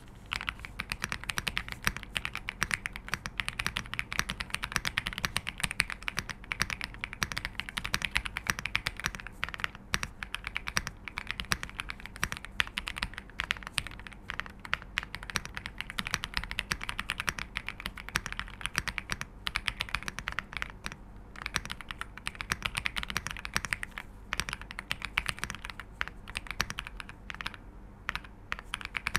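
Fast, continuous typing on a Royal Kludge R75 mechanical keyboard with silver linear switches. The keystrokes are rapid and irregular, with a deep 'thock' rather than a 'clack'.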